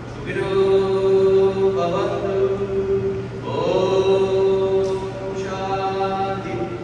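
A man chanting a Hindu mantra in long held notes: three sustained phrases, the last one sliding up into its note.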